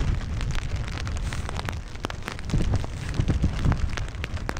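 Wind buffeting the microphone in gusty low rumbles, with raindrops tapping close by in many sharp ticks, in heavy rain.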